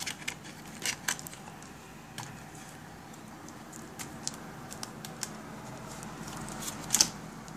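Handling noise of a LiPo battery and its leads against the quadcopter's plastic body: scattered light clicks and taps, the loudest a sharp double click near the end.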